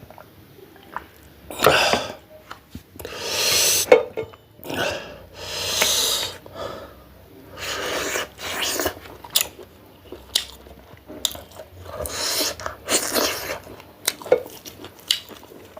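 A person sucking air sharply in and out through the mouth against the burn of hot Dalle chillies while eating, with chewing and wet mouth clicks between the breaths.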